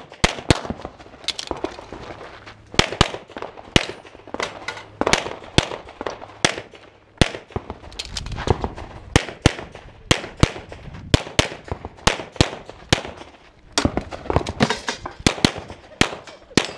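Pistol gunfire in rapid strings of shots, many fired as quick pairs, during a practical shooting stage. Short breaks in the firing come about two seconds in and again around seven to eight seconds in.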